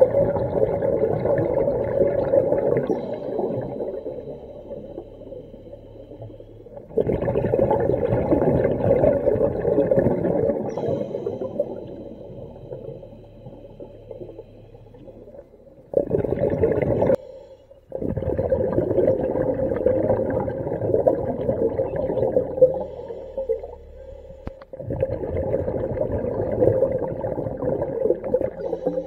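A diver breathing through a hookah rig's second-stage regulator, heard underwater: exhaled air bubbles out of the regulator exhaust in spells a few seconds long, several times, with quieter gaps between them while he inhales.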